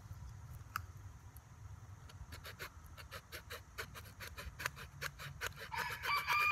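Hand saw cutting through a small cedar limb in quick, even strokes, about five a second, starting about two seconds in. A rooster begins crowing near the end.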